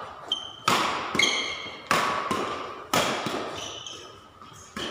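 Badminton rally: sharp racket strikes on the shuttlecock, five or six of them, each echoing briefly in a large hall. Short high squeaks come in between the strikes.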